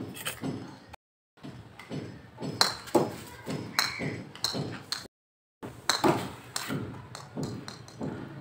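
Plastic cricket bat and plastic ball: a string of sharp knocks and short ringing pings as the ball is struck and bounces on concrete. The sound cuts out completely twice, about a second in and about five seconds in.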